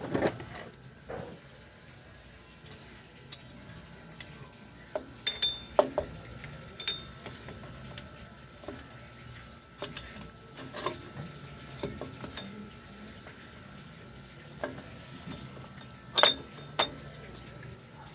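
Metal tools and parts clinking and knocking at irregular intervals during hand work on a car's rear axle assembly, several strikes ringing briefly. A sharp double clink near the end is the loudest.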